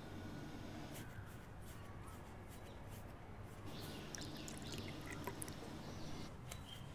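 Hot tea poured from a steel pan into small cups, a thin trickle of liquid, with a few light clicks of the utensils.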